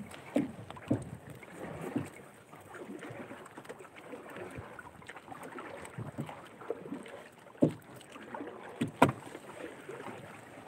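Fishing net being hauled by hand into a small outrigger boat: soft dragging and rustling of mesh and line over the hull, with a few sharp knocks against the boat near the end.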